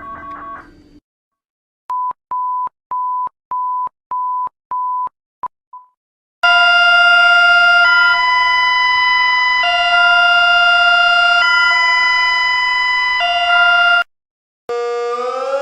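Recorded emergency alert alarms. A chord of electronic alert tones cuts off about a second in, then seven short single-pitch beeps, then a loud alert tone switching back and forth between two chords every couple of seconds. Near the end a siren starts, rising in pitch.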